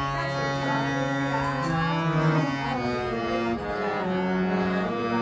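Harmonium playing a song melody: sustained, reedy held notes that step from one pitch to the next over a steady drone.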